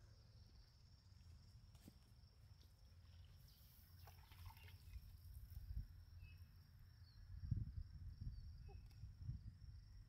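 Near silence: faint outdoor background with a low, uneven rumble that swells briefly near the end.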